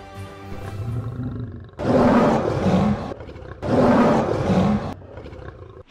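A lion roaring twice, each roar about a second long with a short pause between them.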